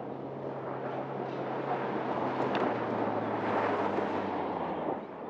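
An SUV's turbocharged 2.0-litre four-cylinder engine running under load, with tyre noise over loose dirt, growing louder and then cutting off suddenly about five seconds in.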